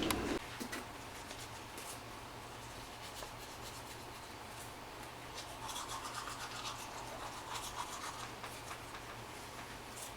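Faint rubbing and rustling, with a denser cluster of soft scratchy sounds about six to eight seconds in.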